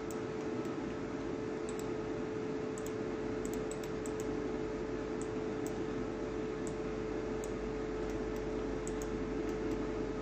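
Steady background hum with hiss, carrying one constant mid-low tone, and scattered faint sharp clicks of a computer mouse being clicked while editing on screen.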